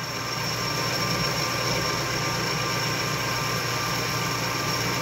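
Metal lathe running, its cutting tool turning down a piece of bar stock: a steady machine hum with a thin high whine over an even hiss.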